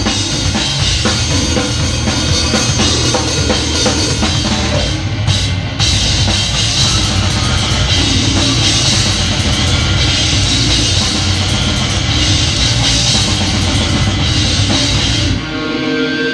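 Live extreme-metal band playing at full volume, picked up by a GoPro beside the drum kit, with the drums (kick, snare and cymbals) loudest. There is a short break about five seconds in, and the song cuts off a second before the end, leaving a held ringing tone.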